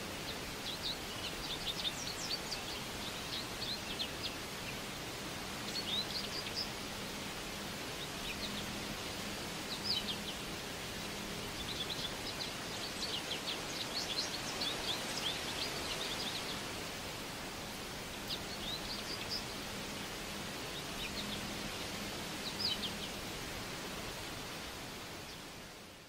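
Forest ambience: small songbirds chirping in clusters of quick, high notes every few seconds over a steady background hiss. The sound fades out near the end.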